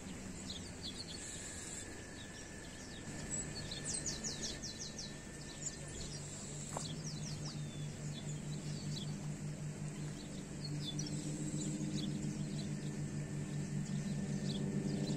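Birds chirping in quick runs of short notes, over a steady low hum that grows louder about two-thirds of the way through.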